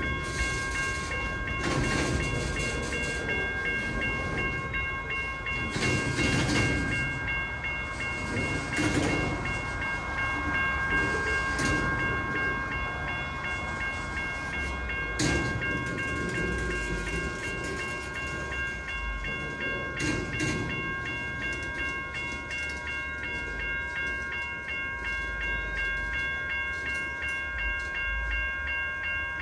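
Freight train of lumber cars rolling by: a continuous rumble with scattered clanks, and a steady high-pitched whine of several tones held throughout.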